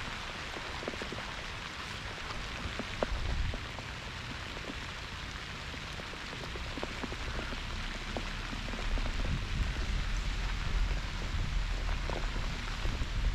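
Pouring rain falling: a steady hiss of rain with many small drop ticks through it. A low rumble builds in the second half.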